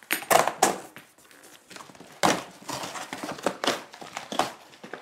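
Cardboard boxes being cut with a knife and handled: a series of irregular rough scraping, crinkling strokes, the loudest in the first second and again a little after two seconds in.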